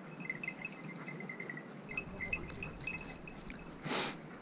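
Faint, irregular tinkling of small bells on hunting dogs moving through scrub. A brief brushing rustle comes about four seconds in.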